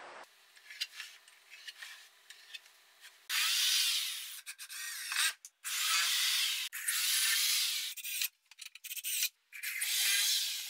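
Power drill boring into pine 2x3 bracing in four rasping bursts of one to two seconds each, starting about three seconds in, after a few light knocks of wood being handled.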